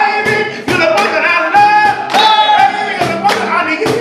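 Live singing with a strummed acoustic guitar, carried on a sharp, steady beat.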